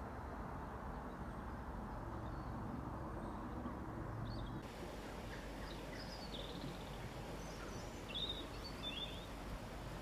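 Woodland outdoor ambience: a steady low background noise with several short, high bird chirps in the second half. The background changes character about halfway through, at a cut between recordings.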